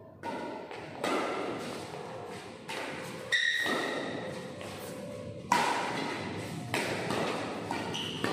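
Badminton rally in a large echoing hall: rackets striking the shuttlecock with sharp hits at irregular intervals, the loudest about three and five and a half seconds in. A brief high squeak comes just after three seconds in.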